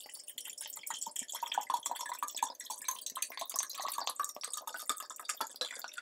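Tap water pouring from a glass swing-top bottle into an empty glass mason jar: a steady stream of splashing into the glass.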